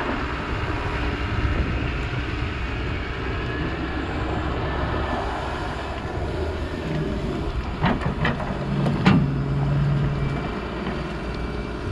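Doosan 140W wheeled excavator running steadily as it swings and lowers its bucket, with a low steady hum from about seven to ten seconds in. Three sharp knocks come close together about eight to nine seconds in.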